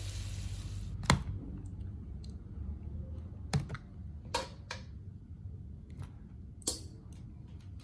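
Metal tongs clicking and tapping as cooked shrimp are set into a plastic container: a handful of short, sharp clicks, the loudest about a second in.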